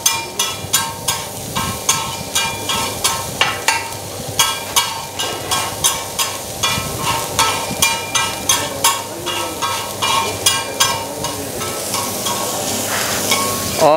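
Metal spatula striking and scraping a large tawa in a steady rhythm, about two to three ringing clanks a second. Minced mutton sizzles as it fries in desi ghee.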